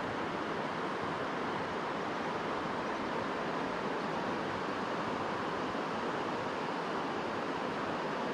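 River water rushing steadily, an even hiss with no change.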